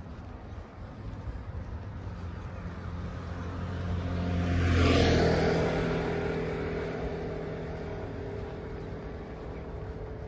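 A motor vehicle passing by on the road. Its engine hum and tyre noise build to a peak about five seconds in, then fade away.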